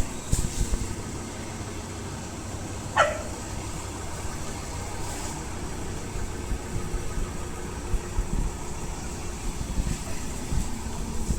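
A steady low motor hum, with one short falling squeak about three seconds in.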